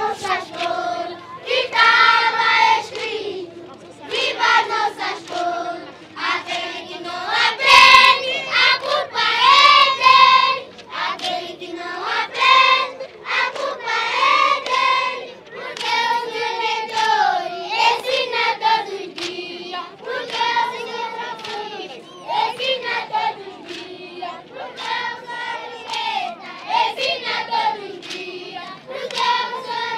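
A large group of children singing a song together in chorus, with hand clapping along.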